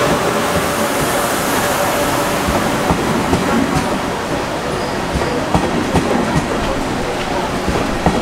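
KTX-Sancheon high-speed train moving along the platform: a steady rolling rumble with irregular clacks of the wheels over the rail joints.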